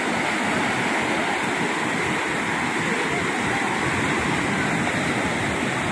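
Sea surf breaking and washing up a sandy beach: a steady rush of waves.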